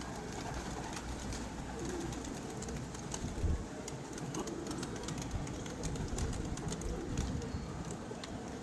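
Domestic pigeons cooing softly, with a few small clicks.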